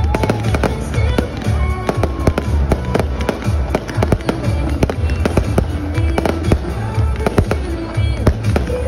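Fireworks going off in rapid succession, many sharp bangs and crackles, over loud music with heavy bass.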